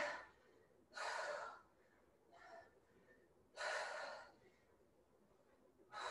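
A woman's heavy breathing from exertion: two sharp exhales, about a second in and just before four seconds in, with a fainter breath between them.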